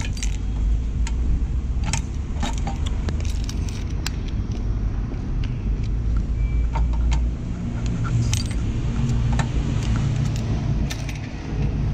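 Keys jangling, with repeated sharp metallic clicks and clinks as they are handled, over a steady low rumble of motor traffic.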